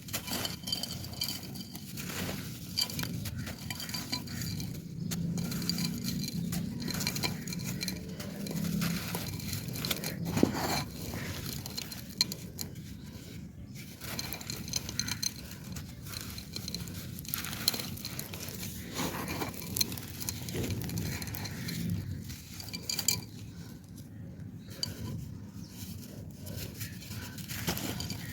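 Dry clay pot pieces being crumbled and crushed into sand: a continuous gritty crunching made of many sharp clicks and crackles.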